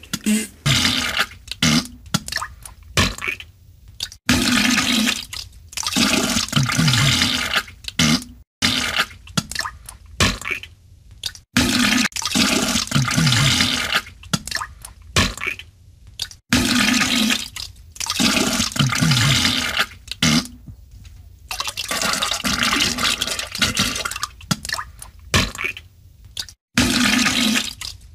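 Diarrhea sound effect: spluttering blasts of gas and splattering liquid, in bouts of a few seconds broken by short pauses, some with a low buzzing blat.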